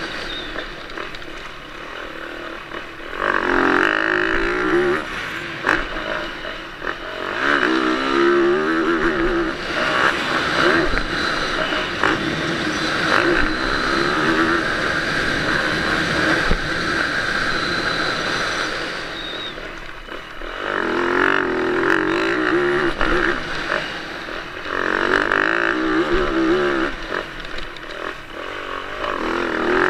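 Yamaha YZ450F's single-cylinder four-stroke engine revving hard and easing off again and again as the motocross bike is ridden, its pitch climbing and falling with the throttle, with a brief drop in revs about two-thirds of the way through. Wind buffets the camera's microphone.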